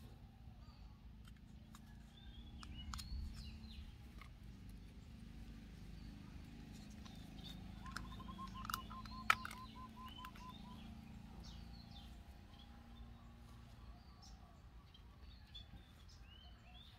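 Small birds chirping now and then over a steady low outdoor rumble, with a short run of rapid, evenly spaced notes about halfway through. A few sharp clicks cut in, the loudest a little past halfway.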